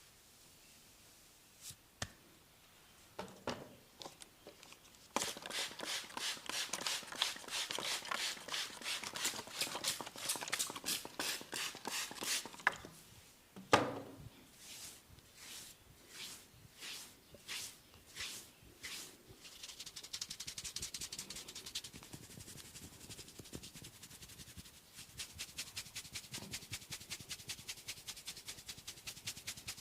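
Head and face massage by hand: bursts of fast, rhythmic tapping on the skin, one sharp, loud smack about 14 seconds in, then slower single strokes and soft rubbing, before the fast tapping starts again near the end.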